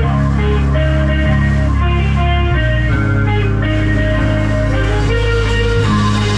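Live midwest emo band playing: electric guitar picking a run of melodic notes over bass and drum kit.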